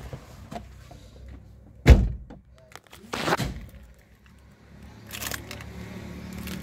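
Car door of a 2004 Honda Stream pulled shut from inside the cabin: one heavy thunk about two seconds in, followed a second later by a shorter noisy rustle.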